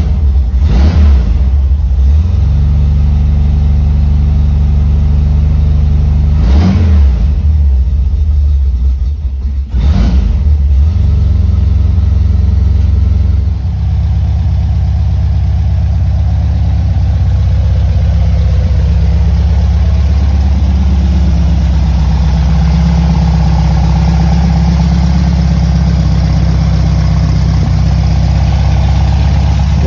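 Porsche 356A Speedster replica's 1.8-litre air-cooled flat-four running just after a cold start, with brief revs about a second in, near seven seconds and at ten seconds. It settles to a steady idle from about fourteen seconds.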